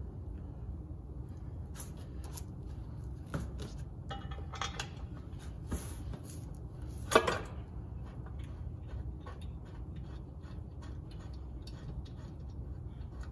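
Clicks and knocks of a Warn winch and its cables being handled, with one louder clank about seven seconds in, over a steady low hum.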